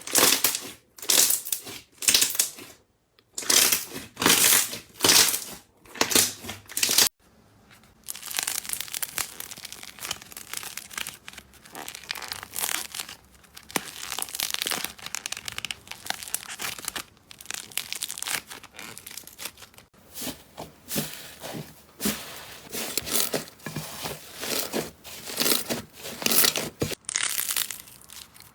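Slime being squeezed, pressed and pulled by hand close to the microphone, giving short noisy bursts about once a second. About seven seconds in, the sound changes abruptly to a denser, continuous run of small crackles.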